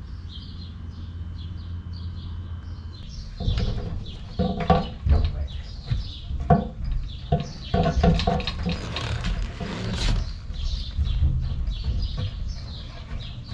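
Hammer blows on a tool set against the steel oil pan (sump) of a Mercedes OM 352A diesel engine, driving at seized pan bolts: irregular metallic knocks with a ringing note. They start about three seconds in, after a steady low hum.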